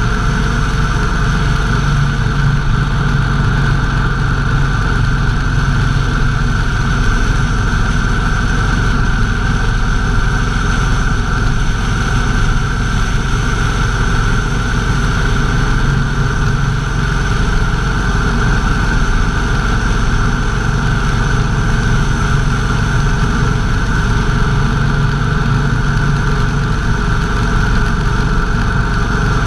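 Motorcycle engine running at a steady cruising speed, holding one pitch throughout, under a steady rush of wind and road noise.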